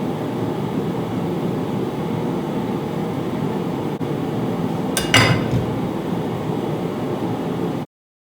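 Homemade forge running with a steady rushing noise, with one sharp metallic clank about five seconds in; the sound stops abruptly near the end.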